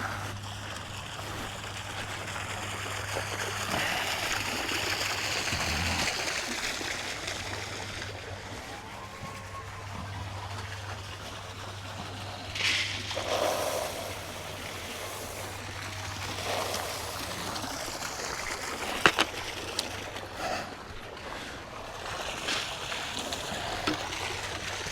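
Water running and splashing, over a steady low hum, with a few short knocks.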